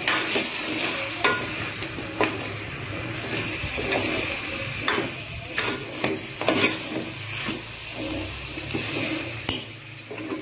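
Metal spoon stirring and scraping curry-powdered chicken and potatoes in an aluminium pot over a steady frying sizzle, with the spoon knocking against the pot every second or so. The spices are being sautéed in oil until the oil separates.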